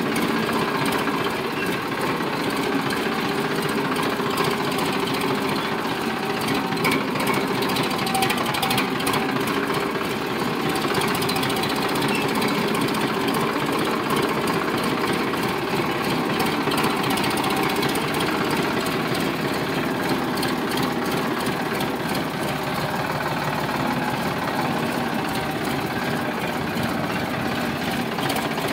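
Sonalika DI 745 tractor's diesel engine running steadily as the tractor drives along, heard up close from the open driver's seat beside the exhaust stack, a continuous rapid clatter at an even speed.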